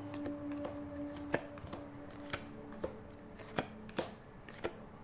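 Trading cards being flipped through by hand one at a time, card sliding over card, with about half a dozen sharp clicks as each card snaps into place.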